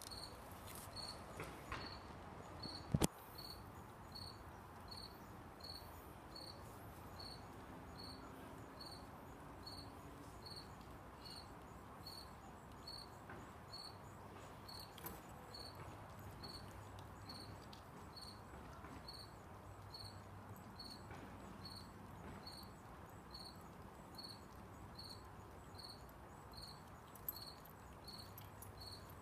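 A cricket chirping steadily, about two chirps a second, with one sharp click about three seconds in.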